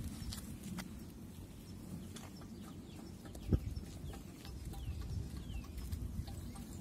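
Faint bird chirps over a steady low rumble, with a single sharp knock about halfway through.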